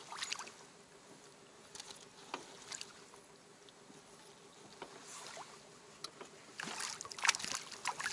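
Water lapping and sloshing against the hull of a small rowboat, with scattered light knocks and splashes that grow louder and more frequent near the end.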